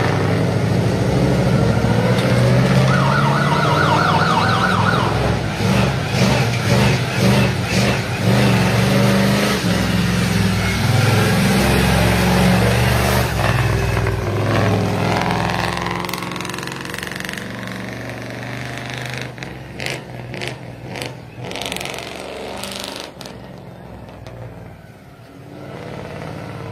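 A monster-truck school bus's engine running loud and revving, with a siren sounding over it; about halfway through the engine drops to a lower, quieter run.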